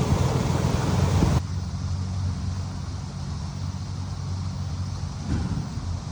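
An engine running steadily at idle, with a loud hiss over it that cuts off abruptly about a second and a half in.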